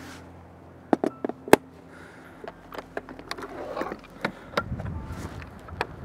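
Handling noises as a wooden large-format field camera is mounted and set up on its tripod: a few sharp clicks and knocks about a second in, then lighter taps. Wind buffets the microphone in the second half.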